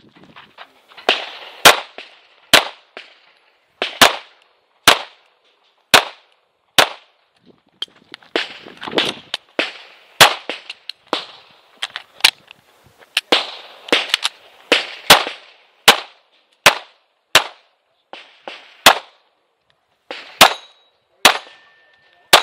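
Tanfoglio Stock 2 Xtreme 9mm pistol firing 115-grain Winchester factory ammunition: roughly two dozen shots at an irregular pace, often in quick pairs, with short gaps between strings. Near the end, a brief ringing follows a few of the shots.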